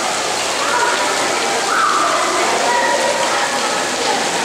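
Steady rush of running water, with faint, indistinct voices over it.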